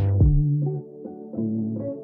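Background music: a few held low notes with a slow melody above them, and no drums.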